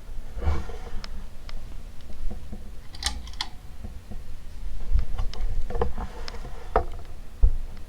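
Casablanca Delta II ceiling fan running with a faint steady hum, over which come irregular sharp clicks and knocks and a few low thuds, the loudest near the end.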